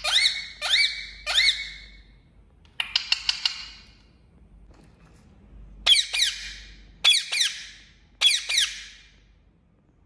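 Indian ringneck parakeet giving a string of sharp, high screeching calls, each rising and falling in pitch. Three come in quick succession at the start, then a rapid little burst of short notes about three seconds in, and three more about a second apart in the second half.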